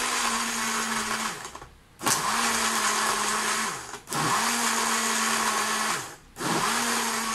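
Electrolux personal blender with a sport bottle, pulsed on and off to blend banana, milk and ice: the motor runs in four spurts of about two seconds, spinning up to a steady hum and winding down in the short pauses between.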